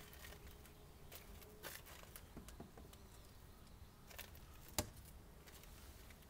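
Faint scattered clicks and knocks from a wooden beehive and its cover being handled, with one sharper knock almost five seconds in.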